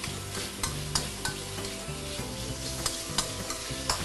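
Ingredients sizzling as they sauté in hot oil in a pan, stirred with a spatula that clicks and scrapes against the pan many times.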